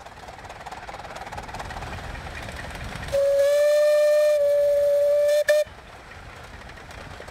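Miniature 15-inch-gauge steam locomotive running along, then sounding its steam whistle for a level crossing: one steady blast of about two seconds starting about three seconds in, then a brief second toot.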